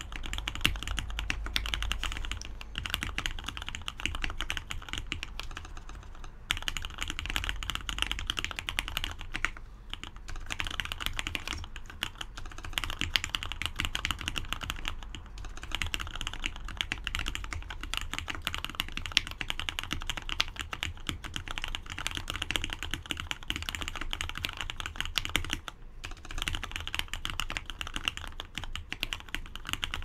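AR87 mechanical keyboard with Cherry MX Red linear switches, lubed with GHV4 and fitted with 60 g springs, being typed on fast and continuously, with a few brief pauses in the keystrokes.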